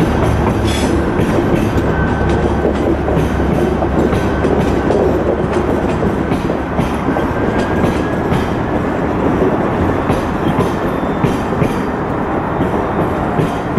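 TGV power cars and coaches being towed past on rails: a steady rolling rumble of wheels on track, with wheels clicking over rail joints and a faint high squeal now and then on the curve.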